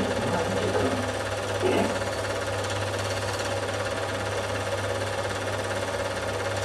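Film projector running: a steady, rapid mechanical clatter over a constant low hum.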